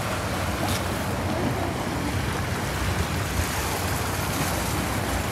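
Steady wind and water noise: wind rumbling on the microphone over waves washing against the shoreline rocks.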